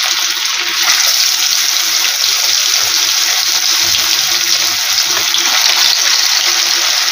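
Pangas fish steaks sizzling steadily in hot mustard oil in a kadhai while more pieces are laid in one at a time. The hiss gets a little louder about a second in.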